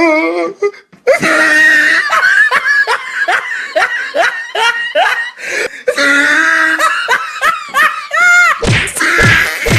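Hearty laughter in a rapid run of 'ha-ha' pulses, about two to three a second, pausing briefly about six seconds in and then picking up again.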